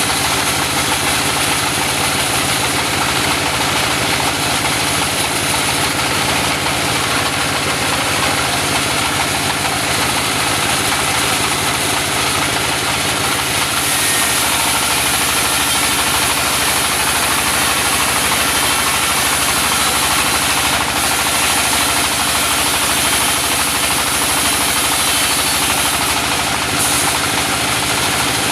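Circular saw running steadily while ripping a Mindi log into wide planks, with a little more high hiss from about halfway through.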